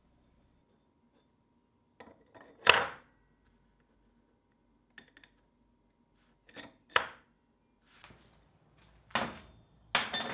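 Machined metal rings set down on a wooden workbench and fitted one inside the other: a few sharp knocks and clinks, the loudest almost three seconds in, with three more later on.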